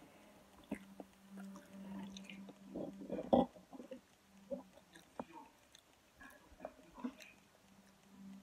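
Quiet eating sounds: a metal fork picking at the rice and ragù filling of a halved arancino, making scattered soft clicks, the loudest about three seconds in, over a faint steady low hum.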